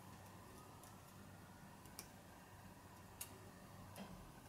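Near silence with a few faint, irregular small clicks, about three, as fingers press and handle the small plastic and metal parts of an opened Canon PowerShot G10 camera body while its replacement screen is seated.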